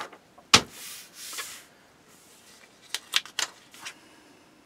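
Paper instruction-manual pages being turned and handled: a sharp slap of paper about half a second in, about a second of rustling, then a few quick crinkles and taps around three seconds in.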